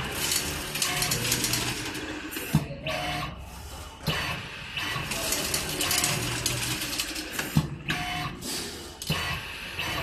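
Automatic nut-tightening machine running: servo screwdriver spindle and feeder whirring, with a sharp click twice, about five seconds apart, as the machine cycles.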